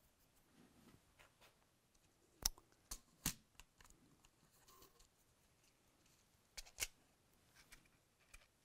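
Light handling clicks of a primer box and a plastic hand priming tool being worked at the bench: a few sharp clicks around two and a half to three and a half seconds in and two more near seven seconds in, with faint ticks between.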